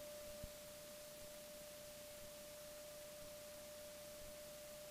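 Near silence between radio transmissions on the headset audio feed, with only a faint steady high-pitched electrical tone and a small click about half a second in.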